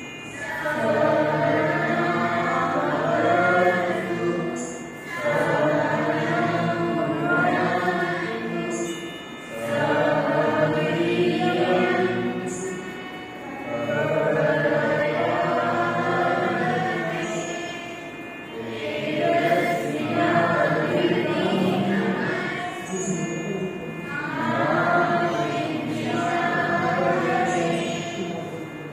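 A group of voices singing together in long phrases of about four seconds each, with a short breath between phrases.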